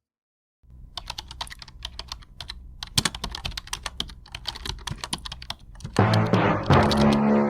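Rapid, irregular clicking, like keys being typed, as a sound effect; about six seconds in, loud music comes in.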